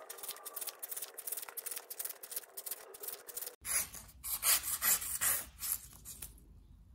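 A Tramontina folding pocketknife blade slicing thin strips off cardboard in repeated quick strokes, a few a second, with a handful of louder cuts in the second half; the cutting stops a little after six seconds in.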